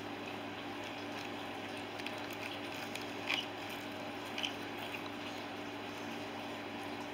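Faint handling sounds of craft pieces being arranged inside a cardboard box, with two soft brief taps about three and four and a half seconds in, over a steady background hiss and a low hum.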